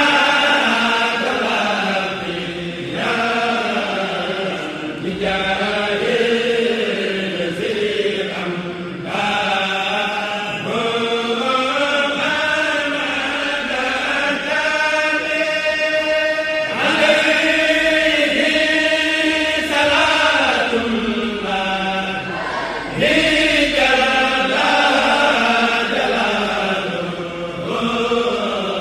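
Voices chanting a Mouride xassida, an Arabic devotional poem, in long melodic lines with gliding, held notes and short breaths between phrases.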